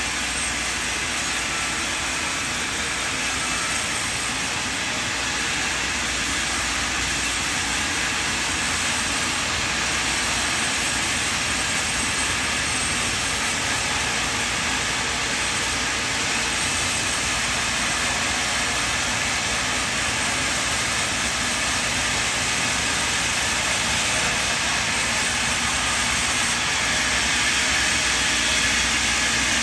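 Large band sawmill running: the saw's motor and blade make a steady, even whir with a hiss, unbroken throughout.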